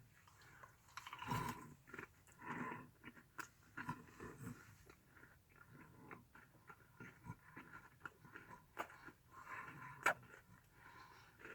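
A person biting and chewing a crunch bar: irregular crisp crunches and chewing sounds with scattered small clicks.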